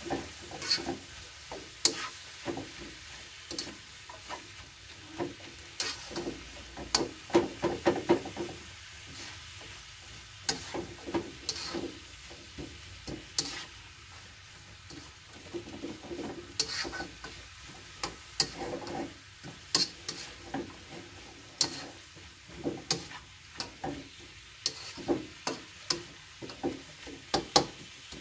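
Pak choi being stir-fried in a wok: a spatula scrapes and knocks against the pan in irregular clicks and scrapes, over a soft, steady sizzle of frying.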